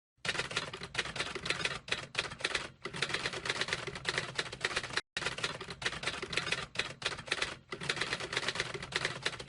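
Rapid, continuous clatter of typing keys, like a typewriter, with one short break about halfway through.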